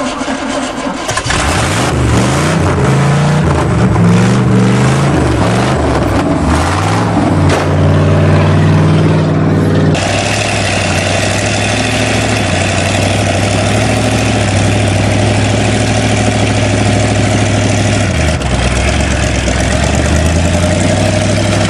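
GMC Sierra pickup engine, exhaust open at the manifolds, caught and revved up and down for several seconds; then, after a sudden change, engine running steadily and hard under load as the truck pulls against a school bus, its pitch dropping briefly about 18 seconds in.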